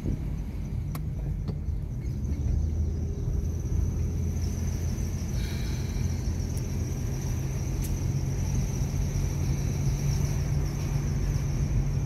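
Car heard from inside the cabin: a steady low rumble of engine and road noise, with a thin, steady high whine and a few faint clicks.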